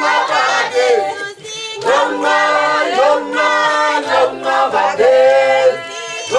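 A group of voices singing a song together in sustained, lively phrases, with brief breaks between phrases.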